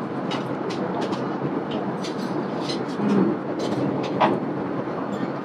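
Steady cabin noise of a Boeing 787-8 airliner in cruise, an even rumble with no gaps. A few faint clicks from a metal spoon in a china dessert bowl sit on top of it.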